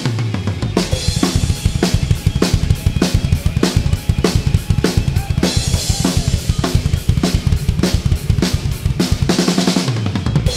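Drum kit played live at a fast pace: rapid bass-drum strokes under evenly spaced snare hits and cymbals, with the rest of the band's amplified music around it.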